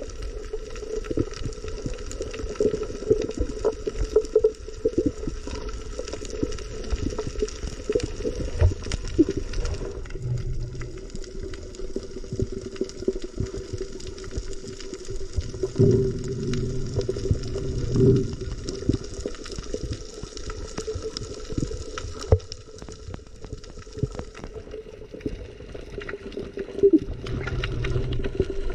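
Underwater ambience during a freedive: a muffled wash of water with constant fine crackling and a steady low hum. Heavier low rumbles of moving water come about 16 and 18 seconds in.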